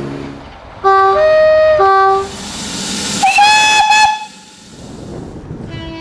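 Two-tone British diesel locomotive horn sounded in a loud low-high-low pattern about a second in, followed a second later by a single higher, shorter horn note.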